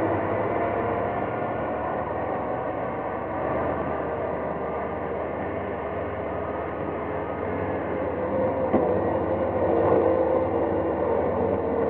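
Heavy wheeled trenching machine running steadily as it cuts a trench through roadside soil and rock, with a few faint held engine tones.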